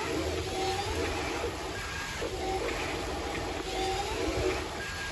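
Remote-controlled toy wheel loader's small electric motors running with a low hum as it makes small moves, with short high tones recurring about once a second.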